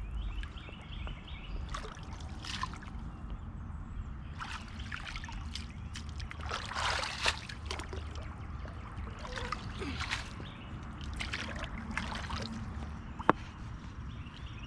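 Pond water sloshing, trickling and splashing in irregular bursts as someone wades and rummages through floating weed by hand. One sharp click near the end.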